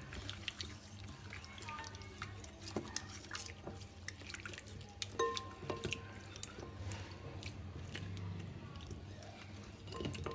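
Wet squishing and clicking of raw chicken wings being rubbed and turned by hand in a glass bowl with vinegar and salt, with occasional light knocks of meat against the glass, over a low steady hum.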